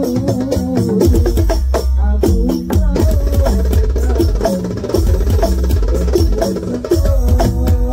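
Live hadrah music: hand-struck rebana frame drums played in a fast rhythm over a deep bass and a melody line.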